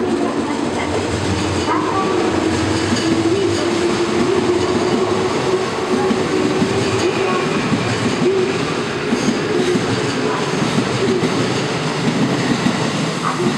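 JR West 221 series electric train running past the platform, its wheels rumbling and clattering over the rail joints with a steady tone underneath.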